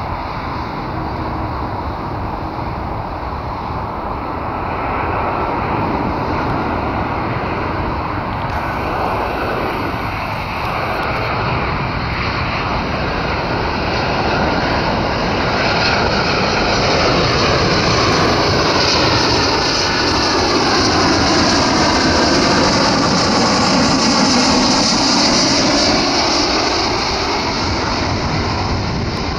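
Boeing 737-800's CFM56-7B turbofan engines on approach power as the jet descends toward the runway. The engine noise grows steadily louder as it comes close, with whining tones that sweep in pitch as it passes by.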